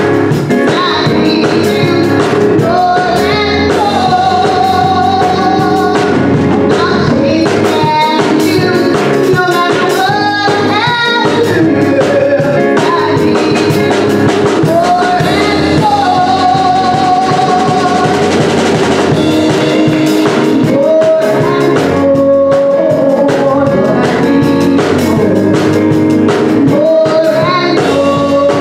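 A woman singing a gospel solo into a microphone, holding long notes, over instrumental accompaniment with drums.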